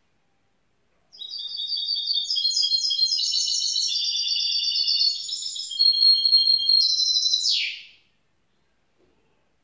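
Young goldfinch mule (goldfinch × canary hybrid) singing one continuous phrase of about seven seconds. It is a rapid run of high twittering notes with a few held notes near the end, closing on a sharp falling sweep.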